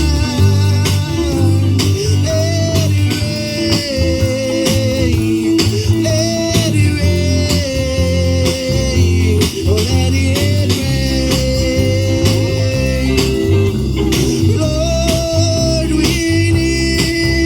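Gospel song played live: guitar and bass keeping a steady beat under long, sliding held melody notes.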